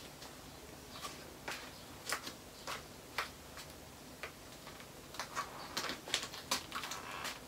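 Light, irregular clicks and taps from a person moving about and posing, coming more often in the last couple of seconds.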